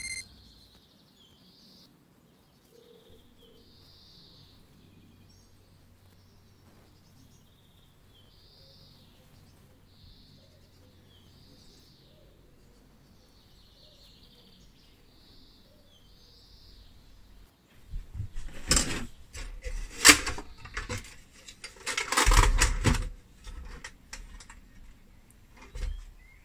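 Faint chirping of birdsong, then, from about two-thirds of the way in, a run of loud knocks and clatters as the red metal toy cash register is handled on a countertop.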